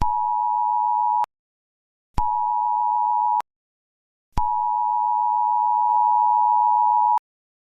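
Emergency alert attention tone: three long, steady electronic beeps of a single pitch, each starting and stopping abruptly. The first two last just over a second each; the third runs nearly three seconds.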